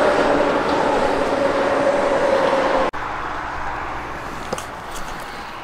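Highway traffic: a loud steady rush of a passing vehicle with a held, slowly falling whine, which drops off suddenly about three seconds in, leaving quieter traffic noise.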